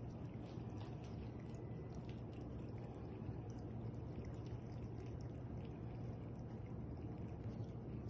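Pet water fountain running: a steady low pump hum under a faint trickle of water, with small scattered drips.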